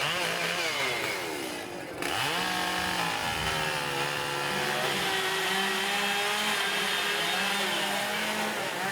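Chainsaws running and revving while carving wood. The engine pitch sinks over the first two seconds, jumps back up sharply about two seconds in, then holds high with brief dips.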